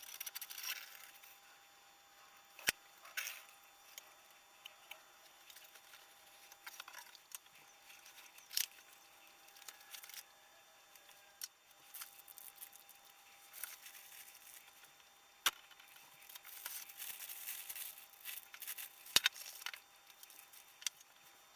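Cardboard boxes and plastic bags handled in gloved hands: scattered rustling and crinkling with a few sharp taps, thickening into plastic-bag crinkling near the end. A faint steady tone runs underneath.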